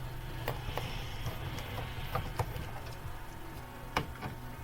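Scattered light clicks and knocks of a screwdriver and hands working screws out of the underside of a Samsung all-in-one PC, the sharpest knock about four seconds in, over a steady low hum.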